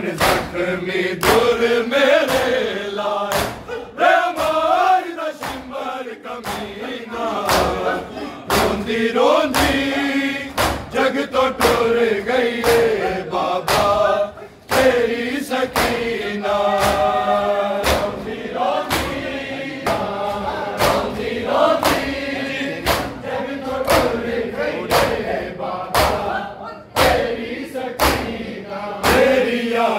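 Crowd of men chanting a noha in unison, with sharp slaps of matam (hands beating on chests) keeping a steady beat about once a second.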